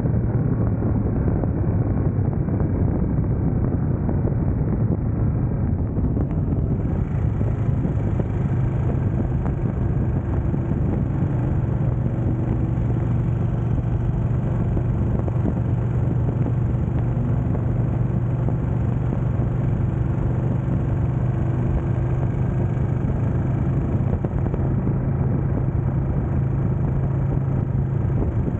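Ducati Panigale sportbike engine cruising on the highway, a steady drone at a nearly constant pitch.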